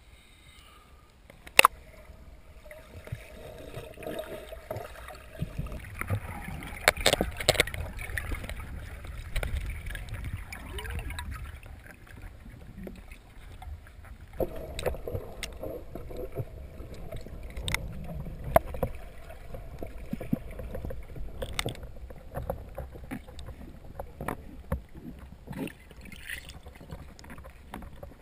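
Muffled underwater sound heard through a submerged camera's housing: a steady low rumble of moving water with occasional sharp clicks and knocks, the loudest about two seconds in.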